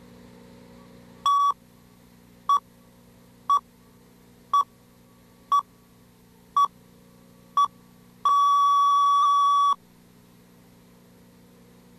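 Countdown-leader beeps at the head of a cable-TV tape: a high, steady test-tone beep sounding once a second, seven times, then held for about a second and a half before cutting off suddenly. A faint low hum runs underneath.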